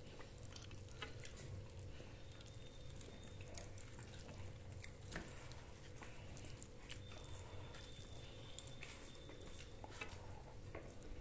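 Quiet room with a steady low hum, and faint scattered clicks and taps of people eating a meal; one tap about five seconds in stands out slightly.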